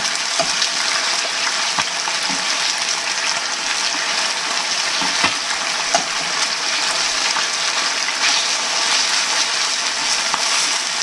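Chicken tenderloins sizzling in hot olive oil in a frying pan, a steady dense hiss, with a few light clicks as the pieces are turned over with a fork.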